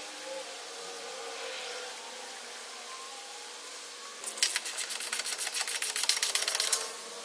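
Ratchet wrench clicking rapidly and evenly for about two and a half seconds, starting about four seconds in, as the nut on the outer tie rod's heim-joint rod end is run down. Before it there is only faint steady background.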